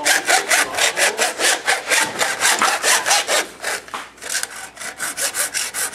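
A saw cutting through the hard plastic housing of a 1990s cordless phone, a rhythmic rasp of back-and-forth strokes at about four or five a second. The strokes ease a little past the middle, then pick back up.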